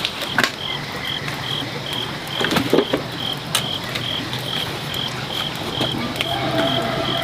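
A cricket chirping steadily, one short high chirp about twice a second, with a few sharp clicks and knocks, the loudest near the middle, and a low steady hum underneath in the second half.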